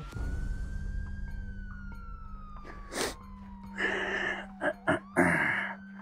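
Police siren wailing slowly: its pitch rises, sinks gradually and rises again, over a steady low hum. A few short noisy bursts come in the second half.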